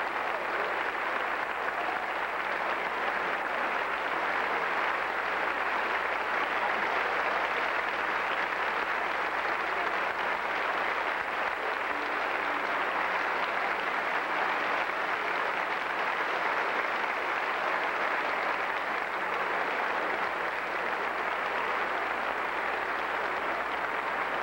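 Audience applauding steadily: a dense, even wash of clapping with no music, heard on an old VHS recording.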